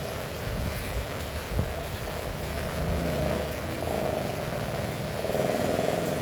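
Heavy rain falling steadily, under a low rumble that swells about four seconds in and again near the end, with one short knock.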